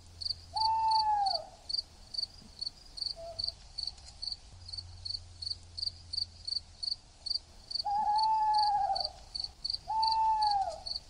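Night ambience: a cricket chirping steadily, about three chirps a second, with a falling hooting call that comes three times, about half a second in, at about eight seconds and near ten seconds.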